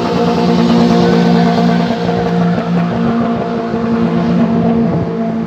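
Car engine, likely the Corolla's 2ZZ-GE four-cylinder, held at steady high revs with an even, constant pitch, falling away slightly near the end.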